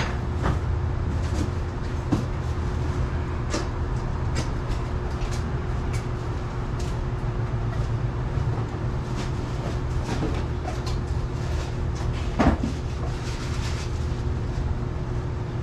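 Workshop background noise: a steady low hum with a faint steady tone, and scattered light clicks and knocks, the sharpest about twelve seconds in.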